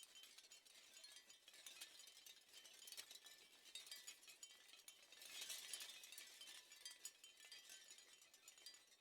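Faint shell wind chime: many small shells knocking and clinking against each other in a continuous rattle, swelling a little past halfway.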